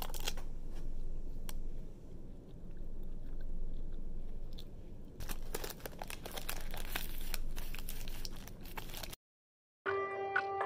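Chewing, then a plastic peanut butter cup wrapper crinkling and tearing as it is pulled open for about four seconds. The sound cuts off suddenly, and about half a second later synthesizer music starts.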